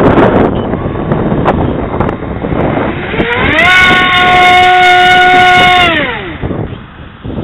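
Hobby King Skyfun's 2800 Microdan electric motor spinning a Graupner 5.5x4.3 prop while the plane is held in the hand: about three seconds in it ramps up to a loud steady whine, holds for about two seconds, then winds back down. Wind noise on the microphone before the run-up.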